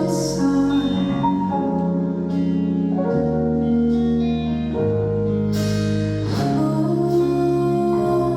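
Live band music: an instrumental passage of held chords that change every second or two, with a couple of sharp strikes about two-thirds of the way through.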